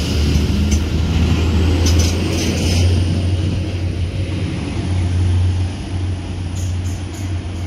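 Class 175 diesel multiple unit's underfloor diesel engines running with a steady low drone as the train moves along the platform, with a few light clicks.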